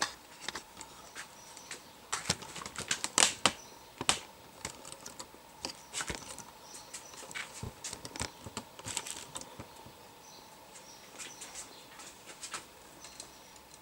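Irregular clicks, taps and light rustling from hands and equipment being handled on the workbench, as coax cables and connectors are moved. The clicks are busiest in the first few seconds and thin out later.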